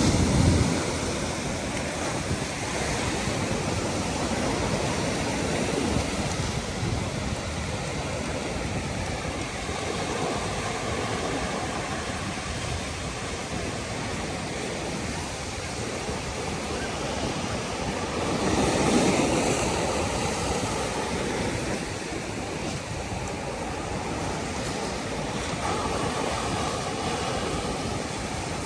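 Sea surf breaking and washing up over a concrete slipway, a steady rush of water, with one wave surging louder about two-thirds of the way through.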